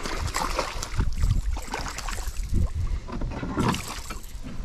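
A small hooked fish splashing and thrashing at the water's surface right beside a plastic kayak, in irregular bursts. Wind rumbles on the microphone underneath.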